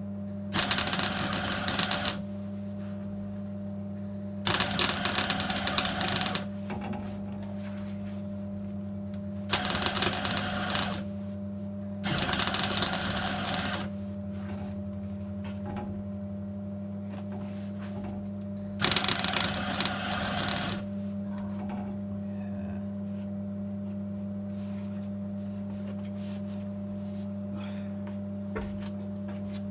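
Welder laying short bursts of weld on car body steel: five crackling bursts of one to two seconds each in the first twenty seconds, then only a steady electrical hum that runs under it all.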